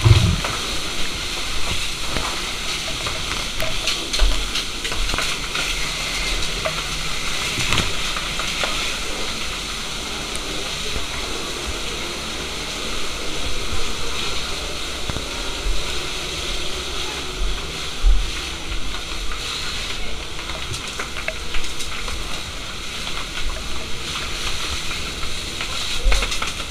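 Steady hissing spray of a fire hose, with water sizzling on burning material, and a few dull thumps.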